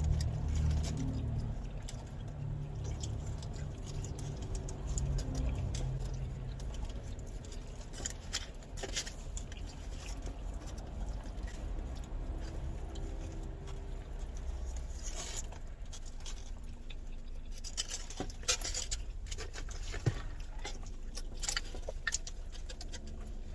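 People eating carne asada fries fast: chewing and scattered small clicks and taps, with no talking, over a low steady rumble that is stronger in the first few seconds.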